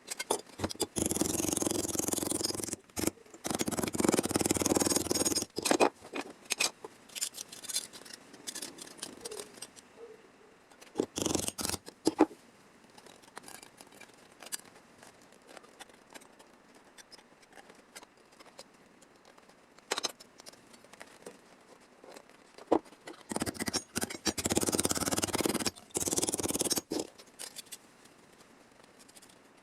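Hand snips cutting sheet steel: several runs of crunching cuts lasting a second or two each, with scattered clicks and taps of metal between them.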